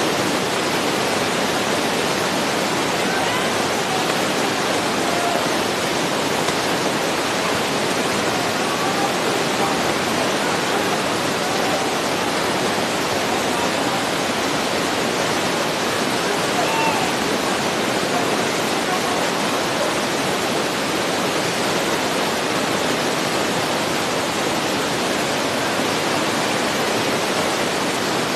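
A loud, steady hiss over an outdoor soccer match recording, unchanging throughout, with faint distant shouts from players now and then.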